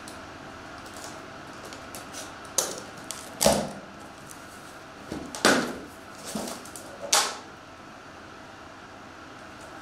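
Cardboard shipping box being handled and opened by hand: about five short scrapes and knocks of the cardboard flaps and box walls, a few seconds apart.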